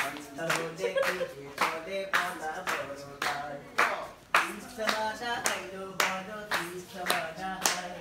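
Several people clapping hands in time, about two claps a second, along with the melody of a Bengali song.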